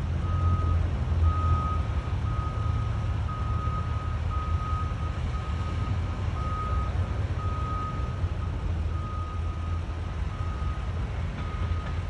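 Backup alarm on heavy construction equipment beeping at one steady pitch, about one beep a second, over a steady low rumble of machinery.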